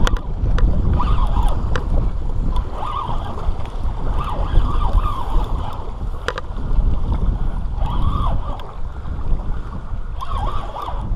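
Spinning reel's drag giving line in short, rising-and-falling whining bursts as a hooked shark pulls, over heavy wind rumble on the microphone. A sharp click comes about six seconds in.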